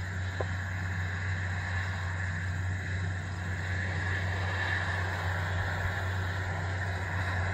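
Steady engine drone running at a constant speed, with no change in pitch or load.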